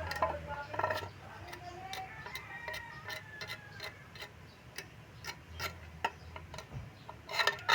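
Irregular clicks and light taps at uneven spacing, with a cluster of louder knocks near the end.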